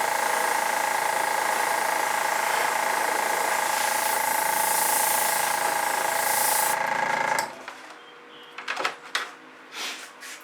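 Hair dryer running steadily with a whine over an airy hiss, blowing across wet acrylic paint, then switched off about three-quarters of the way through. A few faint knocks of handling follow.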